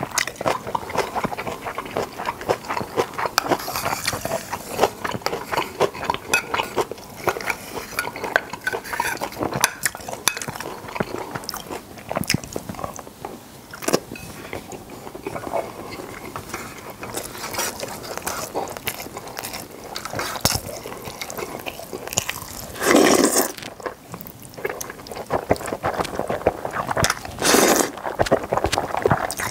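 Close-miked eating of spicy seafood noodle stew: steady wet chewing with many small clicks, and two louder, longer sounds near the end.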